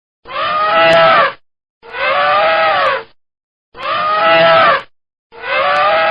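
Elephant calling: the same pitched call repeated four times, each about a second long, rising and then falling in pitch, with short silent gaps between them.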